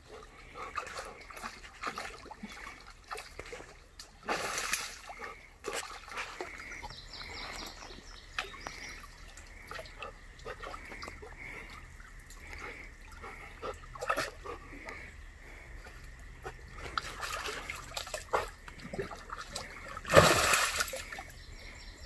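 Chocolate Labrador retriever wading through a shallow creek, water sloshing and splashing irregularly around it, with a louder splash about four seconds in and the loudest, lasting about a second, near the end.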